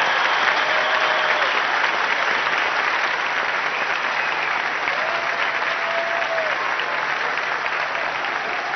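A large hall audience applauding steadily, the clapping slowly dying down.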